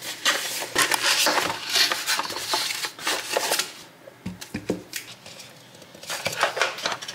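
Unboxing an Amazon Echo Dot: cardboard packaging rustling and scraping with small clicks as the box is opened. A couple of light knocks follow about four and a half seconds in as the round speaker is set down on a table, then more handling clicks near the end.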